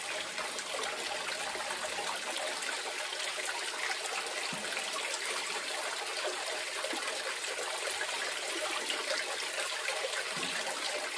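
Pump-fed water running steadily down a small 6-inch cleanup sluice lined with micro dream mat and trickling off its end into a bucket.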